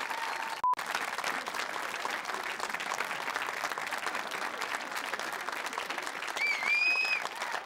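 Studio audience applauding steadily. A short electronic beep cuts in about a second in, and a brief high-pitched call rises out of the crowd near the end.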